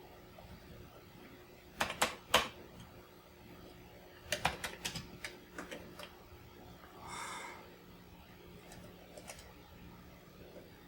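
Key clicks from a Commodore 64's freshly cleaned keyboard being pressed in irregular bursts: a few presses about two seconds in, then a quick run of presses around four to six seconds in. A short buzzy sound comes about seven seconds in.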